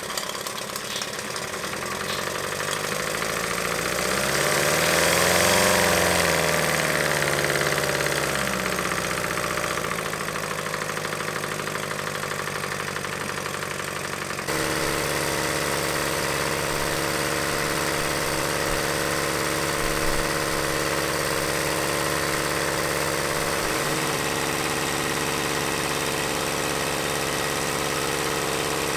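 Miniature two-cylinder model steam engine running under steam. Its speed climbs and then falls back over the first several seconds, then it runs steadily at an even pace.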